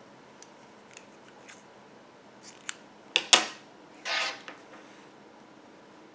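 Scissors snipping the working yarn to finish off a crochet piece. There are a few faint handling ticks, then two sharp clicks a little past three seconds in, and a short rasping snip about a second later.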